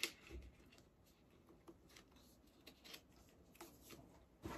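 Quiet handling noises: a few scattered small clicks and rustles as a cosmetics palette and a boxed face mist are picked up and moved about, the sharpest click at the very start.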